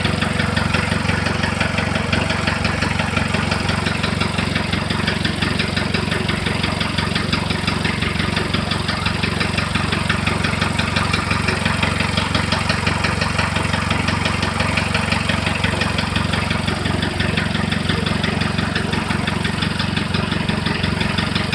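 Diesel engine idling steadily with a fast, even knock running through it: a knock whose cause is unknown to the owner.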